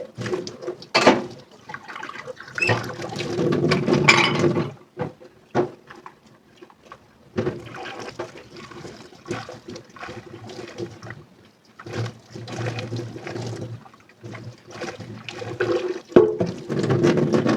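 Dishes being washed by hand in a sink: water running and splashing, with scattered clinks of dishes in stretches that come and go.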